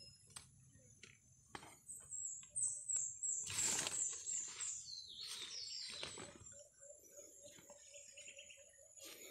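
A small bird singing two quick runs of high chirping notes, each stepping down in pitch. Two brief rustles come close to the microphone in the middle.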